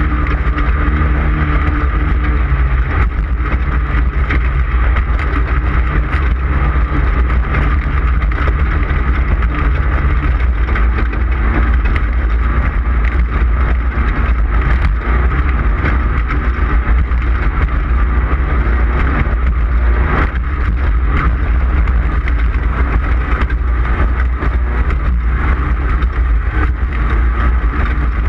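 Onboard sound of an off-road race vehicle at speed: its engine runs steadily under a heavy low rumble, with constant fine rattling and clatter.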